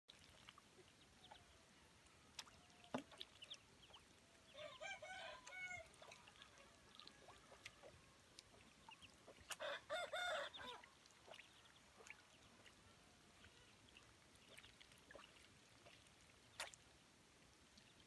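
Quiet poultry yard with ducks and ducklings dabbling at a muddy puddle: scattered soft clicks and faint peeps. Two louder drawn-out bird calls, about a second each, stand out around five seconds in and again around ten seconds in.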